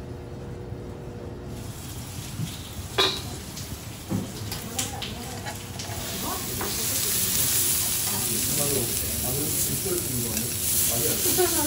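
Wagyu fillet steak sizzling on a steel teppanyaki griddle, with sharp clicks and scrapes of a metal spatula and fork against the plate about three to five seconds in. The sizzle grows louder from about six seconds on.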